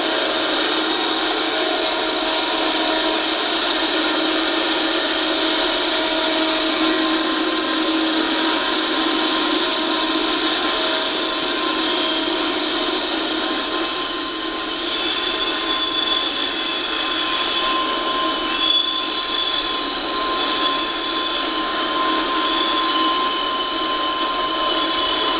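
Norfolk Southern double-stack intermodal train rolling past, a constant rushing wheel-and-rail noise with steady high tones over it. It is heard through a television's speaker, so it sounds thin, with no low rumble.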